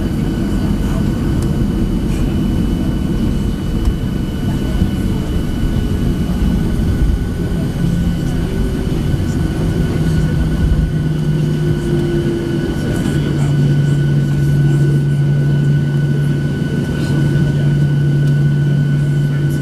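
Cabin noise of a Boeing 737-700 on the ground, its CFM56-7B engines running at low power with a steady high whine over a dense low rumble. Midway a low hum climbs a little in pitch and then holds steady.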